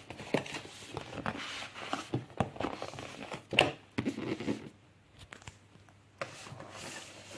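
Cardboard packaging being handled as a boxed keyboard is pulled out of its outer packaging: rustling and scraping with irregular knocks, the loudest about three and a half seconds in.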